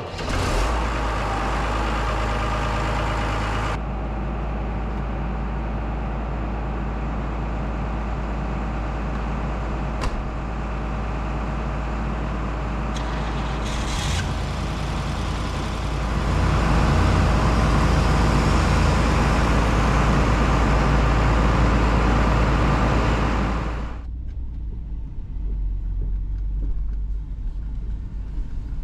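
Farm vehicle engines running: a loader tractor's engine starts suddenly at the beginning and runs with a steady deep rumble. The engine noise gets louder through the middle and drops back near the end to a quieter rumble from inside a pickup's cab as it drives across a pasture.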